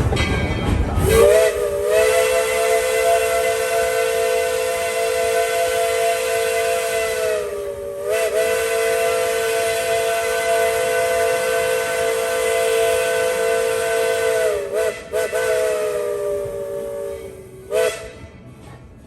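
Steam whistle of Tweetsie No. 12, a narrow-gauge steam locomotive, blowing a chord of several notes: two long blasts, each sagging in pitch as it trails off, then a few short toots near the end.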